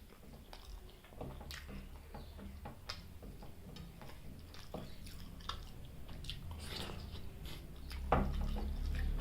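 Close-miked chewing and wet mouth sounds of a person eating chicken liver and gizzard curry with rice: scattered small clicks and smacks, with a louder smack about eight seconds in.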